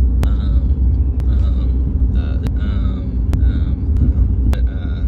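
A vehicle's heavy low rumble, with sharp ticks about once a second and faint voices underneath.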